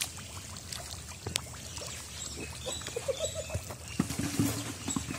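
Shallow, muddy pond water sloshing and splashing as a fishing net is hauled through it by hand, with scattered sharp splashes and clicks.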